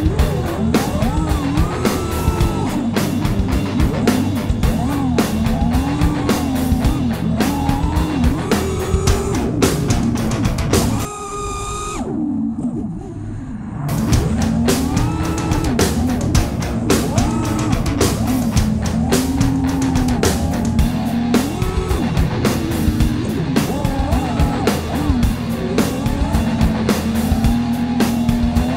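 Rock background music with guitar and a steady drum beat. The drums drop out about eleven seconds in, leaving a held tone that fades, and the full band comes back about three seconds later.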